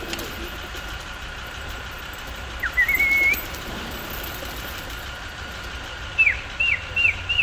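A person whistling close by: one short whistle about three seconds in, then a run of quick downward-sliding whistle notes near the end that rise into a held note, over a low background rumble.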